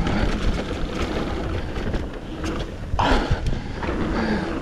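Mountain bike rolling fast down a dirt singletrack: tyres on packed dirt and the bike rattling, under steady wind buffeting the microphone of the mounted action camera. A brief louder burst of noise comes about three seconds in.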